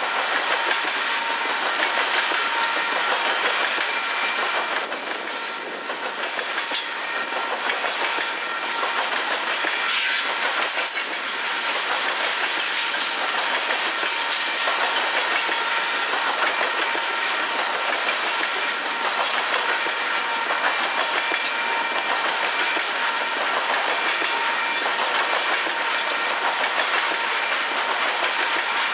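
Freight train cars rolling past at steady speed, the wheels clicking and clattering on the rails, with a cluster of sharper clicks between about five and eleven seconds in.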